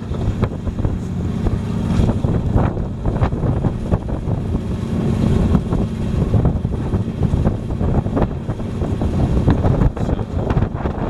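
A fishing boat's engine running steadily, with wind buffeting the microphone and waves washing against the hull. Scattered sharp clicks and knocks from handling gear at the rail come through on top.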